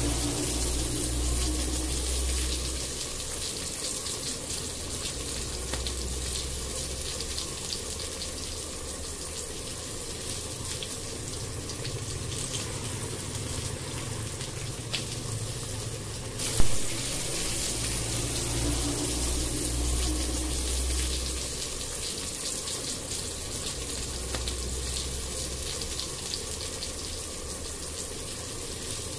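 Thin curry gravy with potatoes, pointed gourd and prawns simmering in a wok: a steady bubbling hiss with fine crackles and a low rumble that swells and fades. A single sharp click sounds a little past halfway.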